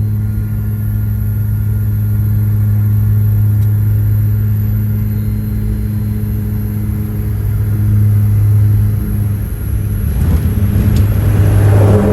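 A small propeller plane's engines droning steadily on landing approach. About ten seconds in come a couple of sharp knocks, then a rushing noise that swells, as the plane touches down and rolls on the runway.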